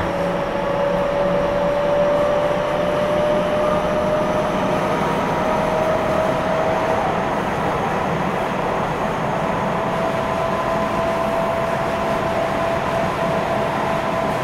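Tokyo Metro 10000 series subway train running, heard from inside the car: steady wheel and track noise with a traction motor whine that rises slowly in pitch as the train picks up speed.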